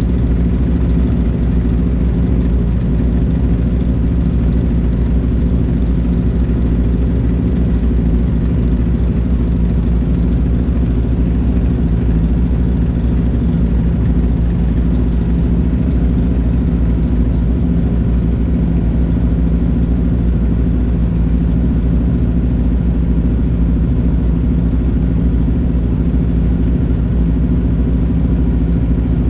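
Sport motorcycle engine idling steadily, heard close up from the bike itself.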